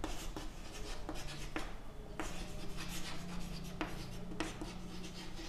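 Chalk scratching on a chalkboard as words and a formula are written, in a run of short, irregular strokes.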